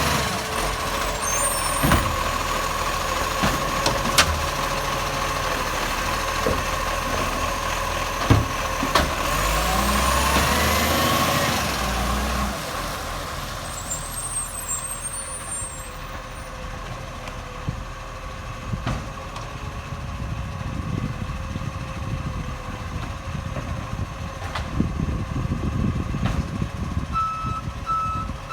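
Acco side-loader garbage truck running loud with a leaking exhaust, with several sharp knocks in the first third and the engine pitch rising around ten seconds in before the sound eases off. A reversing beeper starts pulsing near the end.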